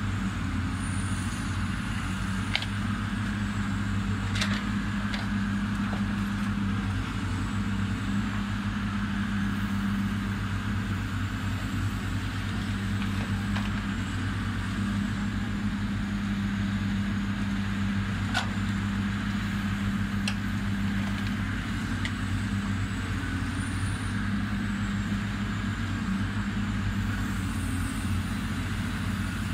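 Diesel engine of a demolition excavator running steadily while its hydraulic grapple works, with a few sharp knocks from the wreckage and a faint wavering high whine.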